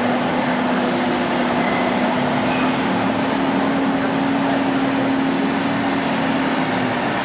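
Steady din of a busy indoor exhibition hall, with a continuous low hum that stops near the end.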